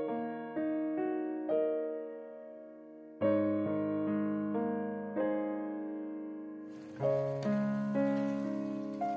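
Background piano music, chords and single notes struck and fading away. About seven seconds in, a steady hiss joins it.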